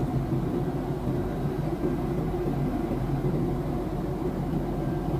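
Jet airliner cabin noise in cruise flight: a steady low rumble of engines and rushing air.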